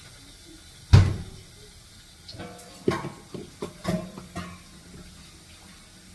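Kitchen clatter: one heavy knock about a second in, then a quick run of clinks and knocks of metal pots and utensils, some ringing briefly.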